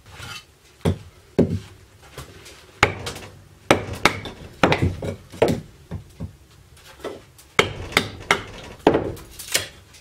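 Fixed-blade knife splitting dry dead-standing pine into kindling: about a dozen sharp wooden knocks and cracks at an uneven pace.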